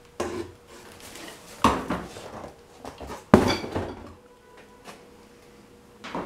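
Parts and packaging of a powder coating machine being handled and set down: a few knocks and clatters with rustling between them, the loudest clatter a little over three seconds in.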